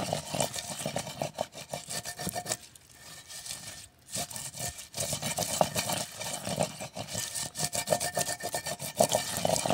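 Wooden pestle grinding wet melon seeds in a clay mortar: quick rubbing and scraping strokes as the seeds are crushed into a milky paste. The strokes ease off about two and a half seconds in, then pick up again about a second and a half later.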